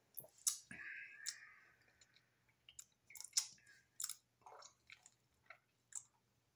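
Smoothie sipped through a plastic straw: a short sucking slurp, then mouth clicks, lip smacks and swallowing as it is tasted.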